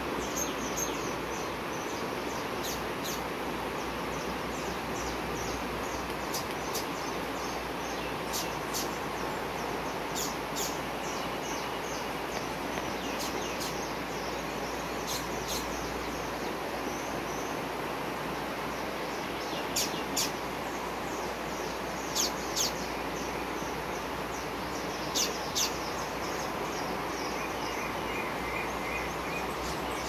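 Steady rush of flowing stream water under many short, high bird chirps. Three pairs of louder, sharp bird calls stand out in the second half.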